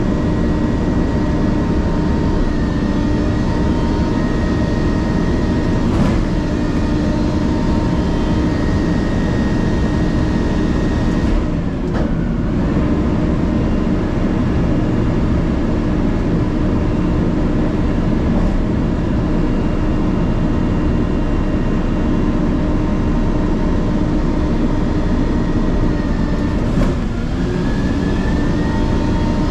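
Garbage truck running steadily, a continuous engine rumble with a steady hum. A few light clicks come through about 6, 12 and 27 seconds in.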